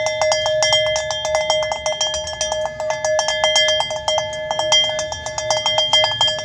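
Brass cowbell with a wooden clapper being shaken by hand, the clapper knocking rapidly against the shell, many strikes a second, over a steady ringing tone.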